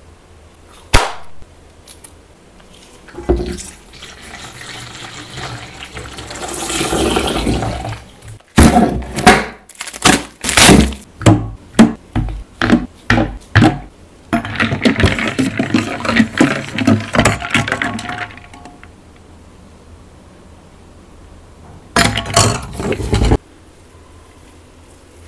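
Milk pouring into a stainless steel bowl of diced watermelon, the rush growing louder over a few seconds; then a quick run of sharp clinks as ice cubes drop into the bowl, followed by a few seconds of sloshing and clinking. A short burst of noise comes near the end.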